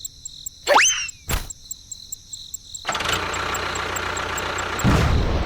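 Cartoon-style sound effects: a quick rising whistle and a knock, then from about three seconds in a steady engine-like running sound, with a low thump near the end.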